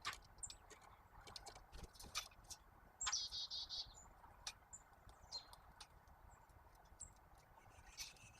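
Small birds calling: scattered short high chirps, and a brief rapid chattering call about three seconds in. Sharp taps are scattered throughout.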